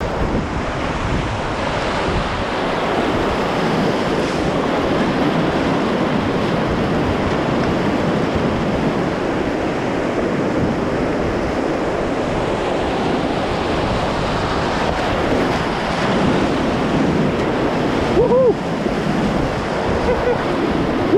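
Whitewater rapids rushing loudly around a kayak at water level, a steady, dense sound of churning river water.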